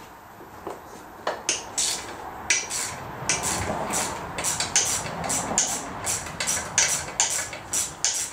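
Sharp metallic clicks and clinks of hand tools working on a MerCruiser Alpha One Gen 2 outdrive's upper housing. They come a few at a time at first, then about two a second from a couple of seconds in, with softer handling and scraping noise in between.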